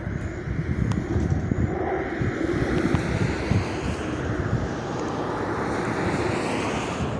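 Pilatus PC-21 turboprop trainer flying a circuit, its engine and propeller running steadily, with a rising whine over the last few seconds. Wind buffets the microphone.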